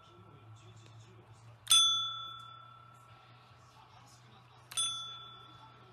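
Pink pet call bell (a desk service bell) pressed twice by a rabbit, about three seconds apart; each press gives one bright ding that rings on and fades away.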